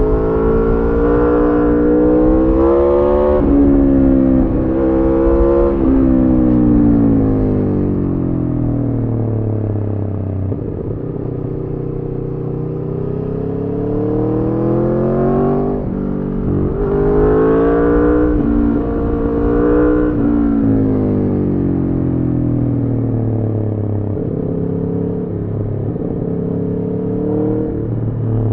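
Aprilia Tuono V4 motorcycle's V4 engine through a decatted Arrow slip-on exhaust, accelerating hard with sudden drops in pitch at each upshift, then rolling off and slowing; this happens twice.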